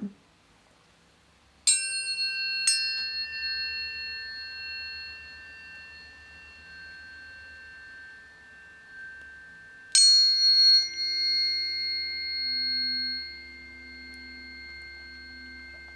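Planetary tuning forks struck one after another, about two and three seconds in, and again about ten seconds in. Several clear pitches ring together and fade slowly.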